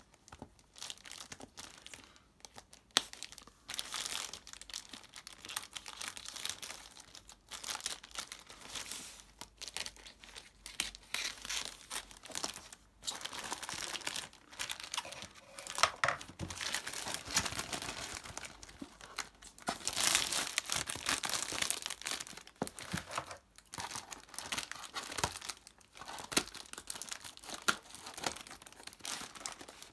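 Plastic courier mailer bag and black plastic wrapping being torn open by hand and cut with scissors: irregular crinkling and tearing of plastic film in bursts, with short pauses between them.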